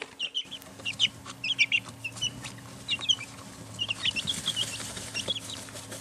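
Domestic chicks peeping: many short, high chirps in quick clusters, over a steady low hum that starts about half a second in.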